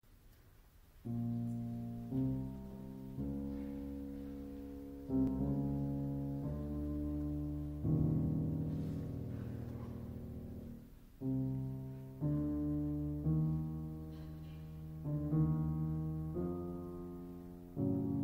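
Solo piano playing the slow introduction to a lied: a series of sustained chords, each struck and left to fade, starting about a second in.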